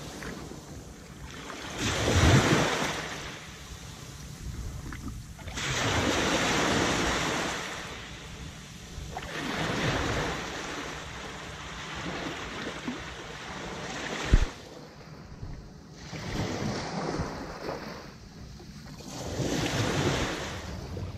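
Small surf breaking and washing up the sand right at the microphone, a wave swelling in and receding every few seconds, with wind rumbling on the microphone. A single sharp knock about two-thirds of the way through.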